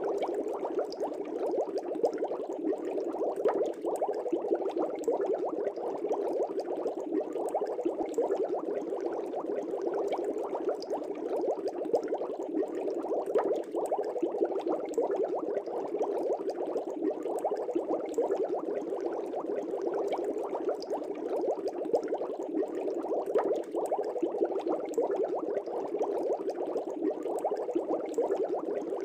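Steady, unbroken bubbling of water, like the air bubbles rising in an aquarium.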